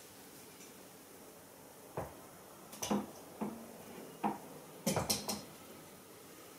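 Swords being handled at a stand: a handful of scattered metal clinks and knocks, ending in a quick cluster of three about five seconds in.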